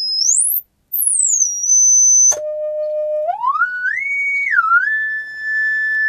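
A pure sine-wave test tone played through a Class B transistor audio amplifier, its crossover distortion cured by two diodes biasing the output transistors. The pitch is swept by hand: a high whistle falls, glides up out of hearing and cuts out briefly, then returns high and falls. Just past two seconds it jumps to a low tone that climbs in steps, dips, and settles on a steady high whistle.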